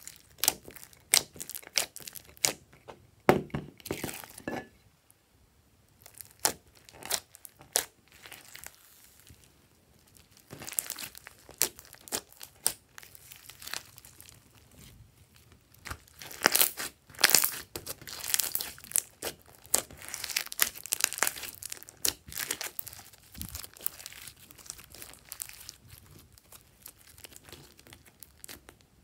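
Hands squishing, stretching and folding a clear slime mixed with foam beads and glitter: irregular sticky crackling and popping, with a couple of short quiet pauses.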